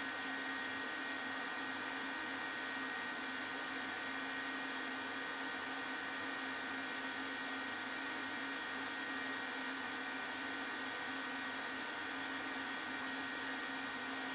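The Z-axis motor of an HBM DM45A mill converted to CNC, running and driving the axis. It gives a steady whine, with two high notes and a lower hum over an even machine noise, unchanged throughout.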